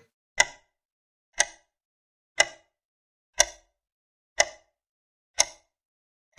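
Clock-tick countdown sound effect: six short, sharp ticks, one each second, with silence between, timing the pause for answering a quiz question.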